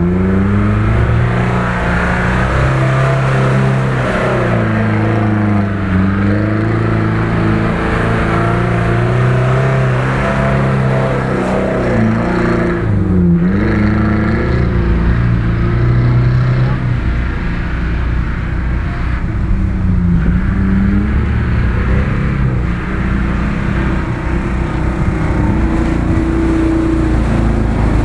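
Off-road 4x4 engine revving hard under load as its wheels spin in mud, the pitch climbing and dropping again and again, with a sharp drop and pick-up about thirteen seconds in.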